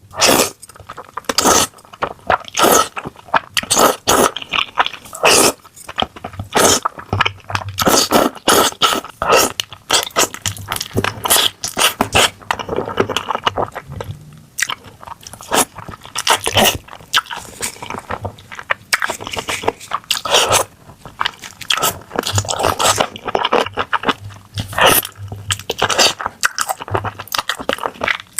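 Close-miked eating: a person biting and chewing, with many sharp, irregular crunches.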